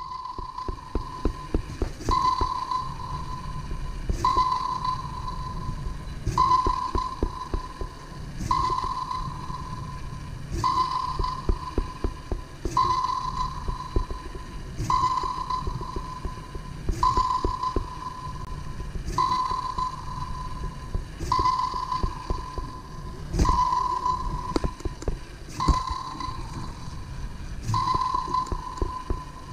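LEGO Mindstorms EV3 TRACK3R tracked robot running: a low rumble and clatter of its treads and motors, under a pinging tone that repeats about every two seconds, each ping starting sharply and fading.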